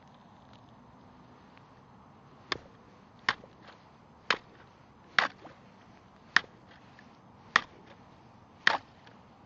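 A stick jabbing down onto thin pond ice and breaking it. Seven sharp strikes come roughly a second apart, starting a couple of seconds in.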